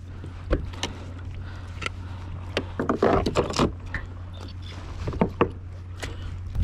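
Knocks and taps on a plastic Hobie kayak's hull and gear as bait fish on a line are handled alongside, over a steady low hum of water and wind. There is a louder noisy burst about three seconds in.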